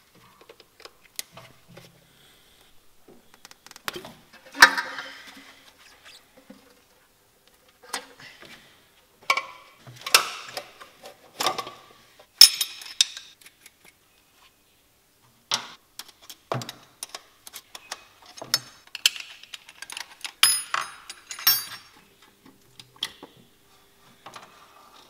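Hand tools and metal parts clinking, knocking and rattling in short irregular bursts with quiet gaps, as the old Solex carburettor and its air intake are unbolted and lifted off the engine.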